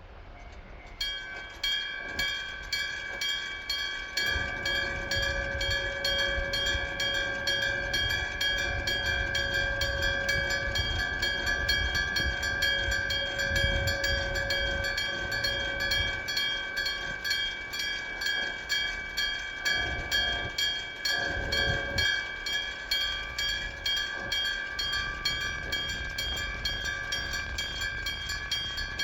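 Japanese level-crossing warning bell of the electronic-bell type ringing a rapid, evenly spaced clang that starts about a second in. A passing train rumbles underneath it.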